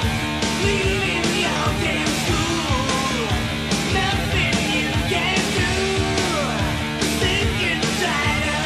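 Glam metal song: distorted electric guitars over bass and drums with a steady beat.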